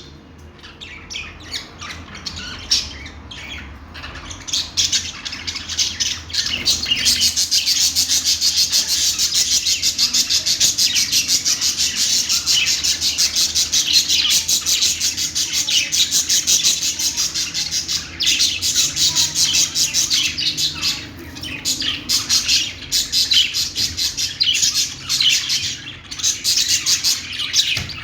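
Budgerigars chattering and chirping in a rapid, high-pitched warble. It is sparse at first and becomes dense and continuous about six seconds in.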